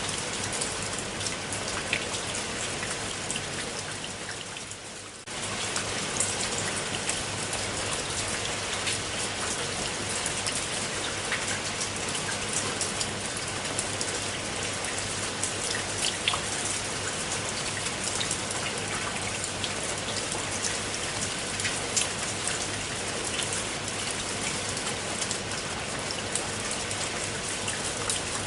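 Steady rain falling on a pool of water: an even hiss with scattered louder drop splashes. The level sags around four seconds in and jumps back abruptly about five seconds in.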